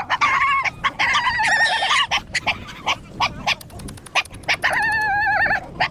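Stray dogs whining high and wavering as they beg for food, with short sharp yips in between.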